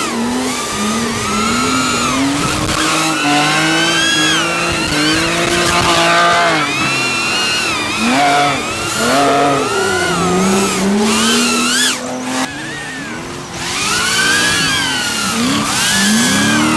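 Drift car engine revving up and down over and over, with tyres squealing as the car slides.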